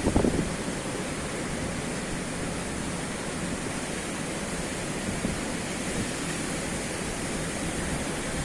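Steady rushing of surf at the harbour jetties, mixed with wind, with a few low thumps just at the start.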